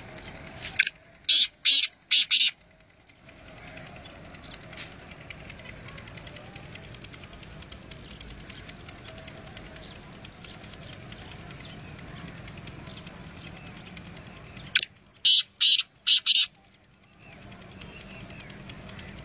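Black francolin calling twice, about fourteen seconds apart. Each call is a short sharp note followed by four loud, rasping notes in quick succession, lasting about two seconds, over a faint steady background.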